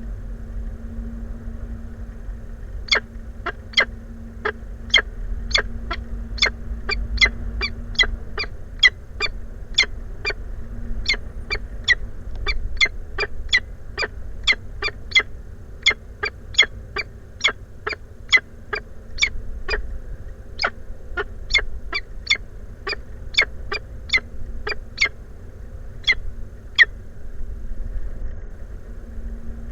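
Peregrine falcon at the nest calling: a long run of short, sharp calls, about two a second, starting a few seconds in and stopping near the end. Behind them is a steady low rumble and hum.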